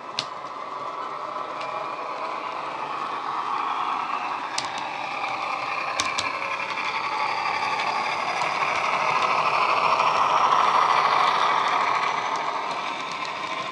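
Dapol Class 68 model locomotive's DCC sound decoder (JMC Class 68 sound on an ESU LokSound 5) playing the diesel engine running through a pair of small megabass speakers. It grows louder as the model approaches and passes, loudest about ten seconds in. A few sharp clicks come in the first six seconds.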